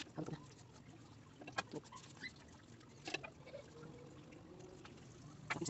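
Quiet handling sounds of a pastry brush glazing bread rolls on a metal baking tray, with a few sharp taps.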